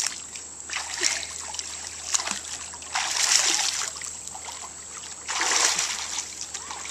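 Swimming-pool water splashing as a child swimmer moves her arms and ducks under into a handstand, coming in bursts a second or two apart, the loudest two about halfway through and near the end.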